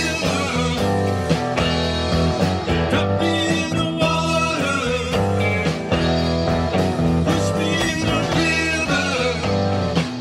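Live classic rock and blues band playing: electric guitars, electric bass and drum kit, amplified through a PA.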